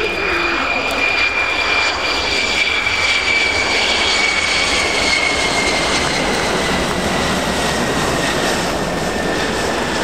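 Boeing F-15QA's twin General Electric F110 turbofan engines running throttled back as the jet lands and rolls out: a steady jet roar with a high whine that slowly falls in pitch.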